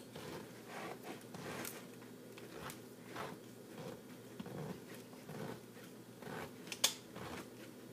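Hand-turned pineapple corer twisting down through a fresh pineapple: a run of soft, irregular crunches and clicks as the blade cuts through the fruit. One sharper click comes near the end.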